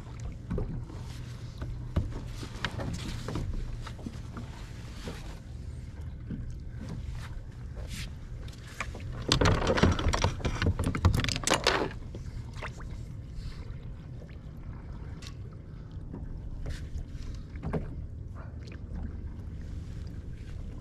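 Water and handling noises around a fishing kayak while a halibut is fought on rod and reel, with scattered clicks and knocks. A louder burst of noise lasts about two and a half seconds near the middle.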